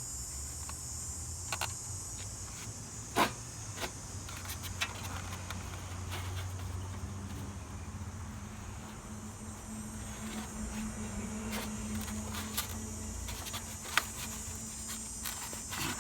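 A few sharp clicks and knocks from hands working loose parts of a window air conditioner, around its styrofoam insulation, over a steady high insect drone and a low hum.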